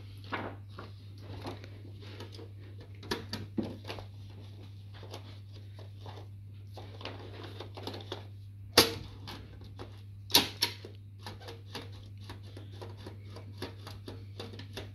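Perkins Brailler, a mechanical braille writer, being loaded with paper and worked by hand: irregular clicks and clacks, with two loud clunks about nine seconds in and again a second and a half later.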